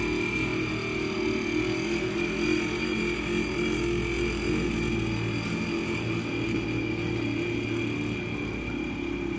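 A motor or engine running steadily: a low drone with a steady high whine above it.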